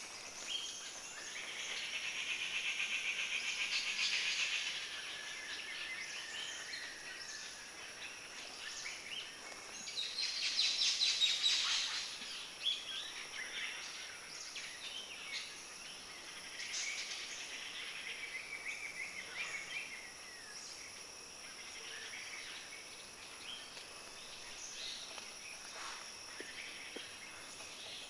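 Forest ambience of birds chirping and calling in the trees, with two rapid buzzing trills: one about two seconds in lasting a couple of seconds, and a louder one about ten seconds in.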